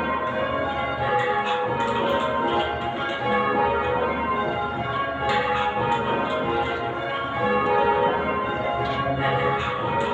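A ring of eight Whitechapel church bells, tenor about 10 cwt in A flat, ringing call changes. The bells strike one after another in a steady repeating cycle, and each stroke rings on under the next.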